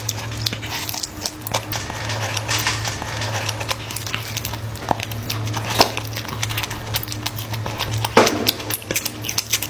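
Close-miked mouth sounds of eating fried chicken: chewing, lip smacking and many small wet clicks and crackles, with a louder crunch about eight seconds in.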